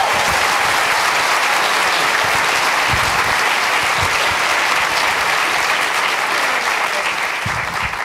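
Audience applauding: a dense, steady clapping from a large crowd that holds at full strength and only begins to thin at the very end.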